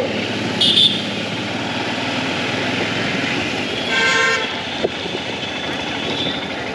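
Motorcycle engine running steadily under way, with road and wind noise. A short, high vehicle horn toot comes about half a second in, and a longer horn honk around four seconds in.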